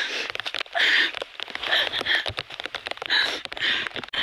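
A person panting hard while on the move, about six gasping breaths over a few seconds, with rustling, footfalls and handling knocks from the camera being carried.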